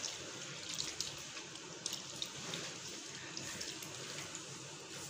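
Boiled macaroni sliding off a plastic colander and dropping into a steel pot of thick sauce: soft wet falls and a few light knocks, the sharpest about a second and two seconds in, over a steady hiss.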